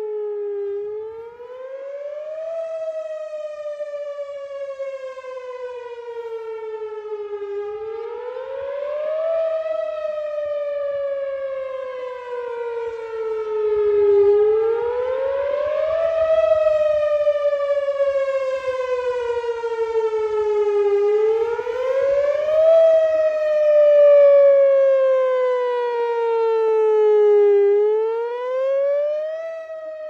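Whelen WPS-4004 electronic outdoor warning siren sounding its wail signal: the pitch rises quickly, then falls slowly, in a cycle about every six and a half seconds. The rotating horn swings toward and away, so the loudness swells and fades, loudest in the second half.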